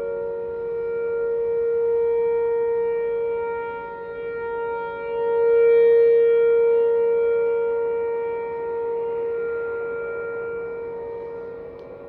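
Outdoor tornado warning siren sounding a steady tone during a test. Its pitch holds level while its loudness swells and fades, loudest about six seconds in.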